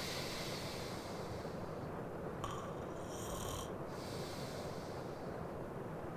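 A man breathing slowly and heavily in his sleep, with light snoring on the breaths. A steady rain ambience runs behind.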